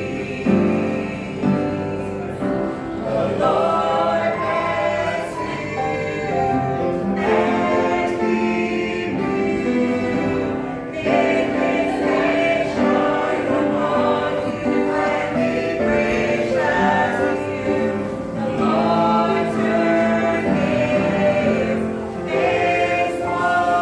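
Gospel choir music: several voices singing together in long held notes.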